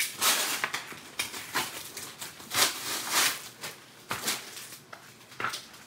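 Gift packaging rustling and crinkling in short, irregular bursts as a heavily wrapped package is handled and unwrapped.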